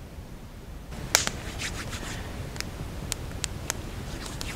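Small campfire crackling, with sharp irregular snaps and pops starting about a second in.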